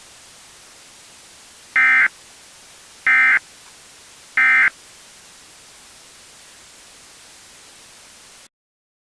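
Emergency Alert System end-of-message signal: three short digital SAME data bursts about a second and a half apart, over a steady hiss that cuts off abruptly near the end.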